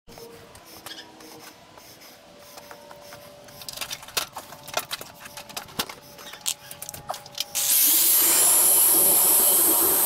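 Scattered light knocks and clicks, then near the end a power drill starts and runs steadily, drilling into a wooden beam overhead.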